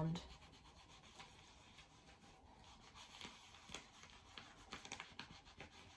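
Faint skin-on-skin rubbing of hands blending in fake tan, with a few soft ticks.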